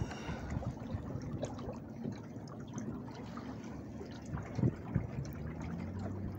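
Water lapping and trickling against the hull of a small sailing dinghy under way, with two soft knocks about four and a half to five seconds in.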